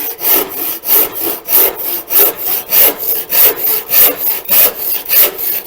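Handsaw cutting through timber in steady back-and-forth strokes, about three a second, rasping evenly as the cut goes down.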